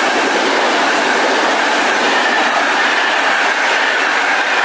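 Frecciabianca passenger train passing through the station at speed: a loud, steady run of coach wheels on the rails with a steady high whine over it. The push-pull train's electric locomotive at the tail goes by near the end.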